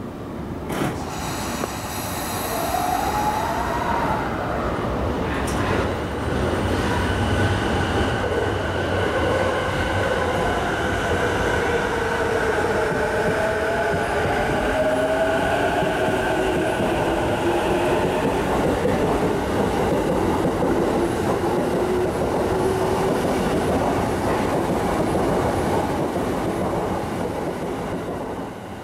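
JR East E233-series electric train pulling out of the platform: a brief high ringing tone and a sharp click early on, then the traction motors' whine wavering up and down in pitch over the steady rumble of wheels on rails, easing off near the end.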